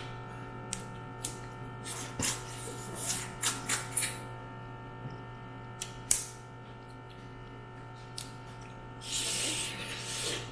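Eating steamed mud crab: scattered clicks and crackles of shell being broken and picked, with mouth sounds, a sharp crack about six seconds in and a brief hiss near the end, over a steady low hum.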